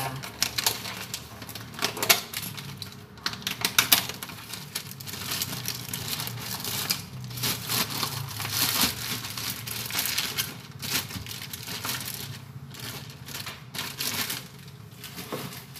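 Plastic bags of ground coffee crinkling and rustling as they are handled, opened and closed, with irregular crackly clicks throughout.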